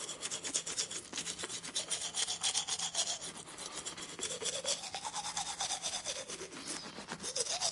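Rapid, rhythmic scrubbing strokes repeating evenly throughout, over a faint tone that slowly rises and falls several times and a steady low hum.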